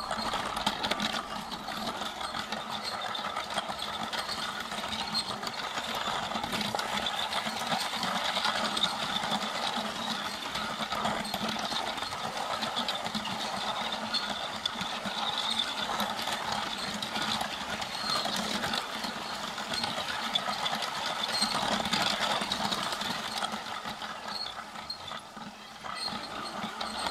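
A LEGO toy train's small electric motor whirring steadily as it runs, with the plastic wheels clicking over the track.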